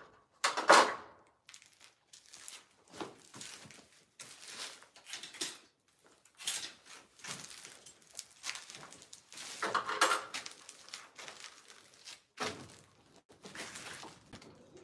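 Irregular clinks, scrapes and rustling of wires and metal tools being handled while wiring an electrical panel, with two louder sharp knocks, one just after the start and one about two-thirds of the way through.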